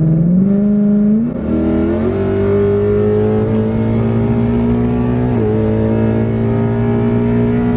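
Ford Mustang GT's 5.0-litre V8 pulling hard under full acceleration, heard from inside the cabin. The engine note climbs, dips briefly with an upshift about a second and a half in, climbs again, then settles. It drops a little with another shift past five seconds and holds steady.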